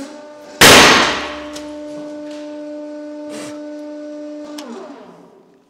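A stack of paper books bursting under a 150-ton hydraulic press with one very loud crack, over the steady whine of the press's hydraulic pump. Smaller cracks and a second burst follow as the ram keeps pressing. Near the end the pump's whine falls in pitch and dies away.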